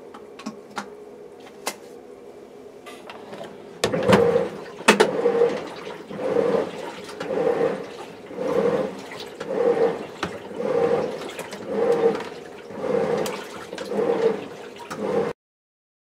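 Panasonic NA-F60B10 top-loading washing machine agitating its load in the fabric-softener rinse: after a low hum and a few light clicks, the pulsator churns the water back and forth, a swishing surge about once a second.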